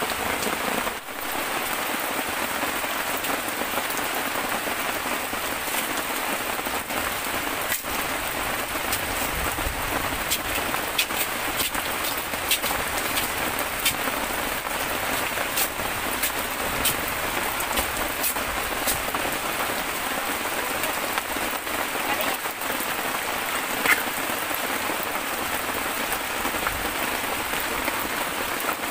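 Heavy tropical rain falling steadily, with many sharp drip ticks scattered through it.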